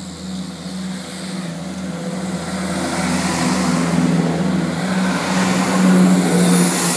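CrossCountry Class 170 Turbostar diesel multiple unit running past: its diesel engines drone steadily under the rising hiss of wheels on rails. It grows louder as it comes alongside and is loudest about six seconds in.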